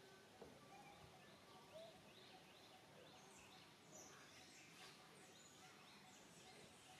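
Faint outdoor ambience with many small, high bird chirps repeating throughout, and two faint clicks in the first two seconds.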